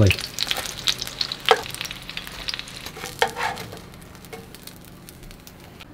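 Crumbed herring fillets sizzling and crackling in hot oil in a frying pan, with sharper clicks as the pieces are turned and lifted out with metal tongs. The frying thins out and gets quieter in the last couple of seconds.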